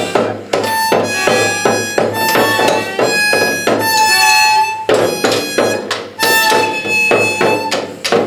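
Two small children blowing harmonicas in long, held chords. A toy drum is beaten with sticks at a steady beat of about three strikes a second underneath. The harmonica chords come in about half a second in and stop near the end.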